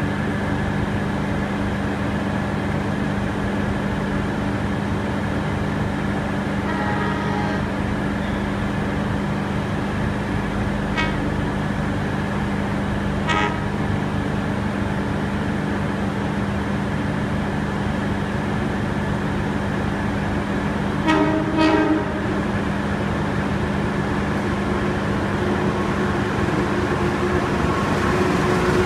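Steady low hum inside a diesel railcar carriage. A short horn toot sounds about 21 seconds in, and a few faint brief beeps come earlier.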